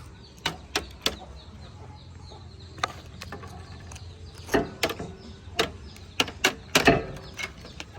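Irregular sharp clicks and knocks, about a dozen, over a steady low hum.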